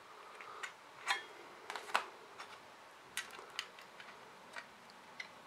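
Irregular light clicks and taps of small plastic parts being handled: a battery pack's lead plugged into its connector on a circuit board and parts fitted into a plastic motion-sensor housing.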